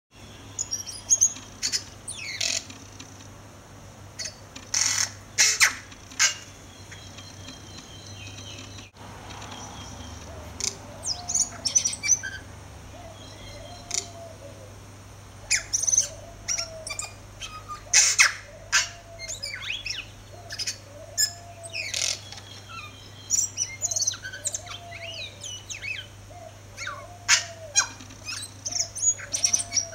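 Tui singing: a long string of short, sharp notes, clicks and whistles in scattered phrases with pauses between them.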